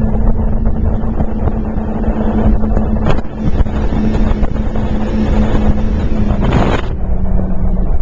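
Speedboat engine running flat out at high speed, its steady note buried in heavy wind buffeting on the microphone and rushing water. About seven seconds in, the engine note drops slightly and the high hiss falls away.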